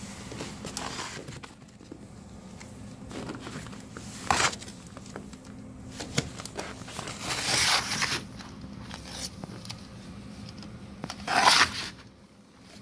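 Snow shovel scraping and pushing snow along the boards of a wooden balcony deck in several separate strokes, the longest in the middle and the loudest near the end.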